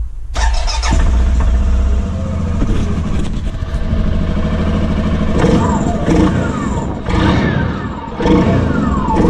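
Suzuki King Quad 750AXi ATV's single-cylinder four-stroke engine starting just after the beginning, then running at idle. In the second half it is revved several times with quick blips of the throttle, each falling back to idle.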